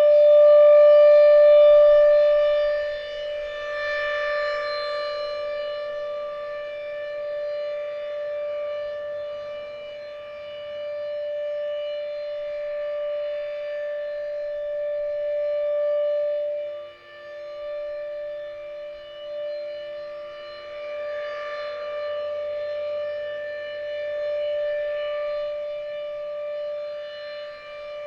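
Federal Signal RSH-10 rotating outdoor warning siren sounding its steady alert. It holds one unbroken tone at a constant pitch, swelling and fading in loudness every few seconds as the rotating horn sweeps past.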